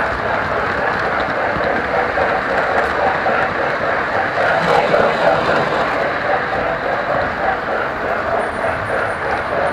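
Model train running on its layout track, heard from a car riding right behind the locomotive's tender: a steady rolling rattle of wheels and motor, a little louder around the middle.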